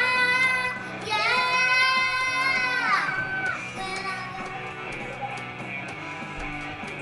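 A child's voice singing long, high held notes over music, ending in a falling slide about three seconds in. After that the guitar music carries on alone with a steady beat.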